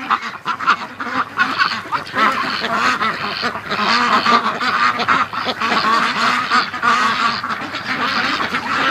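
A flock of domestic ducks, mostly white Pekins, quacking and chattering together, many calls overlapping without a break.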